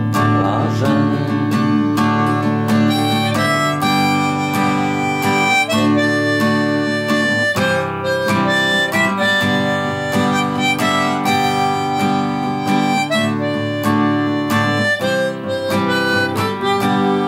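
Harmonica playing an instrumental break of held, changing melody notes over steadily strummed acoustic guitar.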